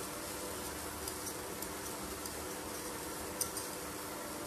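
Faint, scattered ticks of a small knife cutting the skin off a ripe mango, the sharpest about three and a half seconds in, over the steady hum of an induction cooktop with a steak in its pan.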